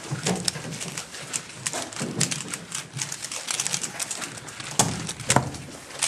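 A 3x3 Rubik's cube being turned fast with one hand: a rapid, uneven run of plastic clicks and clacks as the layers snap round, with two louder knocks near the end as the solve finishes.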